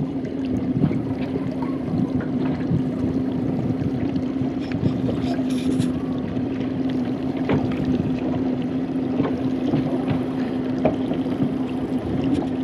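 A motorboat engine running steadily at low speed with one constant hum, over wind and water noise.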